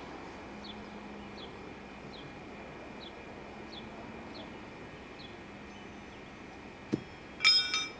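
Soft, evenly repeated bird chirps over a steady background hiss for the first five seconds. Near the end a thrown horseshoe lands: a sharp knock, then a loud, ringing metal clang lasting about half a second.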